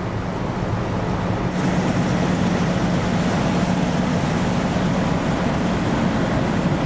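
Fire apparatus diesel engines running steadily: a constant low engine drone under an even hiss, which gets louder about a second and a half in.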